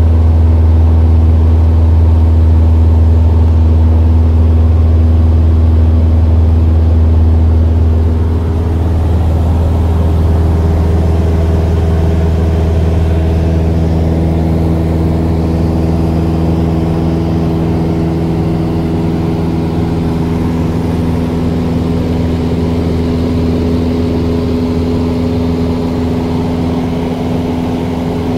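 Cabin drone of a single-engine Cessna in flight: the piston engine and propeller running at a steady cruise note. The deepest part of the drone eases a little about eight seconds in.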